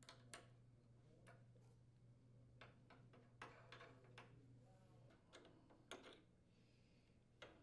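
Near silence, with about nine faint, irregular clicks of a quarter-inch wrench turning a refrigerator's brake foot.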